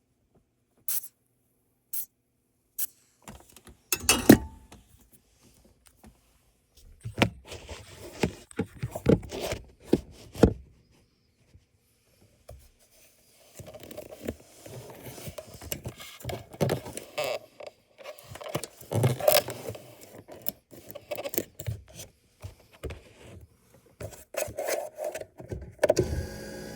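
Irregular clicks, knocks and scraping, rubbing noises from hands working at a BMW E38's steering column, with a few sharp clicks near the start and a quieter pause midway.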